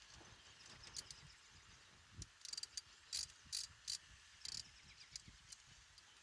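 Socket ratchet clicking in several short bursts about half a second apart, as a 5/16 in. hose clamp screw on the upper radiator hose is run down.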